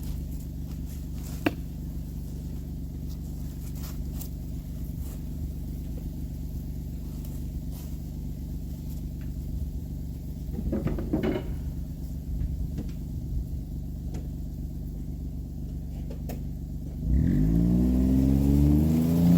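Utility vehicle engine running steadily at low speed, then speeding up with a rise in level and pitch near the end.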